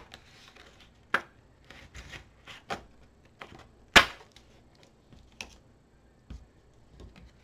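X-Acto craft knife and cardstock being handled on a cutting mat: a string of irregular light clicks and taps, with a sharper snap about four seconds in, as a cut-out hexagon of patterned paper is worked free of its panel.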